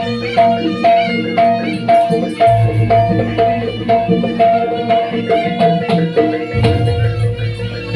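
Javanese jaranan campursari ensemble music: drums and a repeating pitched metal note struck about twice a second, over a steady low bass.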